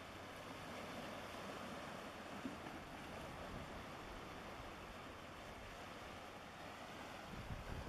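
Steady wind and water noise, with a low, uneven wind rumble on the microphone.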